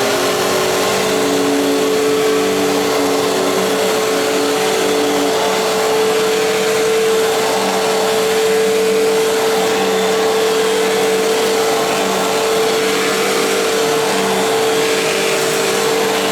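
Fantom Fury dual-cyclonic bagless upright vacuum cleaner running at full speed over carpet: a steady motor whine over loud rushing air.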